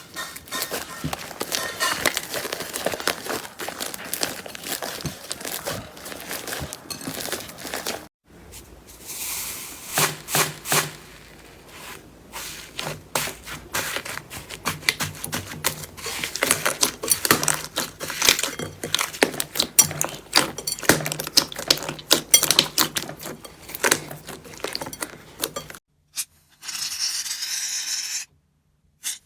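Slime being squeezed and pressed by hand, a dense run of crackling clicks and pops, broken by a few abrupt cuts. Near the end, a steady hissing scrape for about two seconds.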